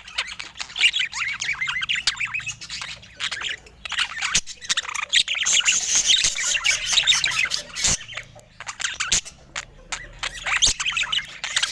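Budgerigars chattering in quick runs of short chirps and squawks, broken by brief pauses, with a few sharp clicks among them.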